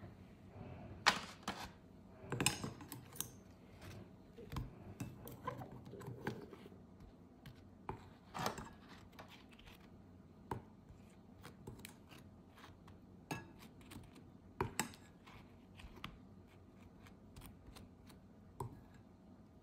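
Irregular light clicks and taps of small hard objects being handled, scattered through with uneven gaps, the sharpest a little after one second in and again near fifteen seconds.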